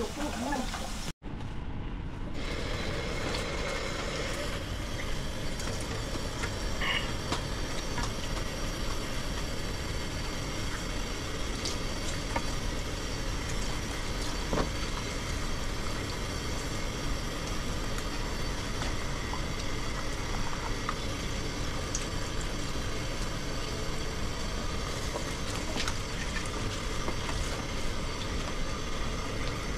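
Kitchen tap running steadily into a metal basin in the sink as fish is rinsed by hand, with a few light clicks and knocks.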